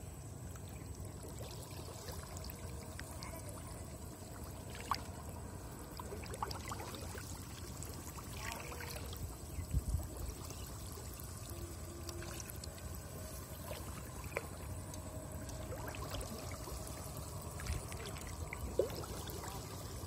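Shallow water sloshing and trickling as a gill net is lifted and handled by someone wading, with a few short sharp knocks and splashes.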